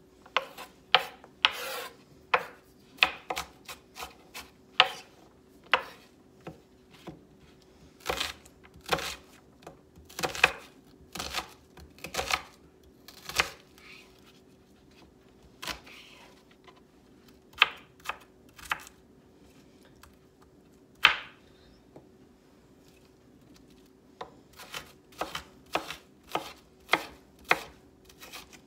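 A chef's knife dicing an onion on a wooden cutting board: irregular sharp knocks of the blade striking the board, thinning out in the middle, then coming faster over the last few seconds.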